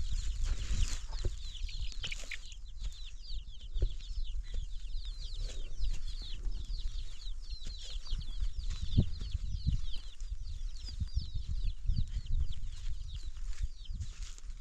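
Many birds chirping together: a steady stream of short, high, falling peeps, with scattered low thumps underneath.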